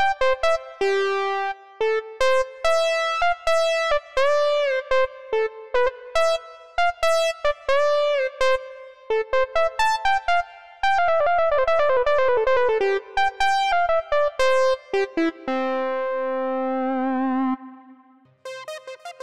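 Yamaha MX88 keyboard playing a synthesizer preset: a single-note melody with pitch bends up and down on some notes and a quick descending run. It ends on a long held note with vibrato. After a short gap near the end, a different patch starts.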